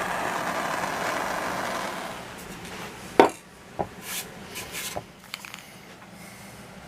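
Power sander running on wood, fading out about two seconds in. Then one sharp knock and a few lighter clicks as the work is handled.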